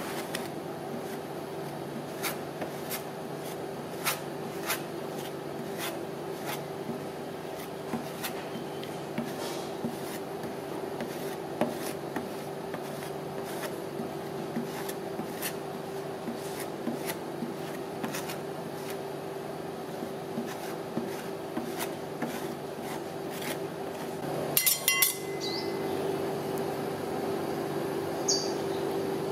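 Metal spatula tapping and scraping on the frozen steel plate of a rolled-ice-cream cold pan, heard as sharp, irregular clicks over a steady hum, with a quick flurry of taps about 25 seconds in.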